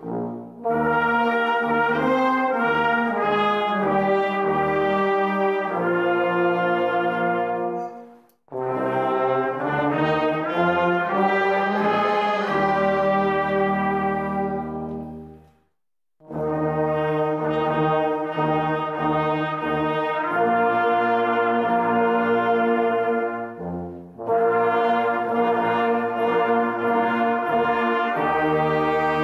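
Brass band playing a slow piece in full, held chords, with trumpets, trombones, horns and tubas together. The music comes in long phrases broken by short pauses for breath about 8, 16 and 24 seconds in.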